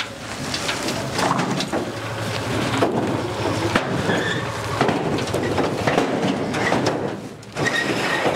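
Black plastic wrapping rustling and crinkling, with scattered knocks and scrapes, as plastic-wrapped machines are lifted and shoved onto a pickup truck's bed. A few short high squeaks sound now and then.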